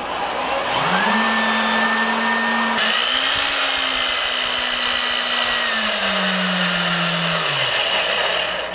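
Corded electric drill motor running, spinning a metal spool-holder rod while 400-grit sandpaper is pressed against it to polish it. The motor speeds up about a second in, runs steadily, then slows and winds down near the end.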